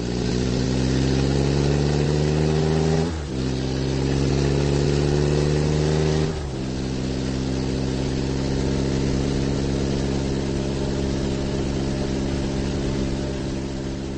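Vehicle engine sound effect: the engine accelerates with rising pitch, shifts up twice, about three and about six seconds in, then runs at a steady speed.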